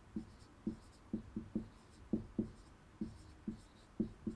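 Marker pen writing on a whiteboard: a quick, irregular run of short strokes and taps, about three a second.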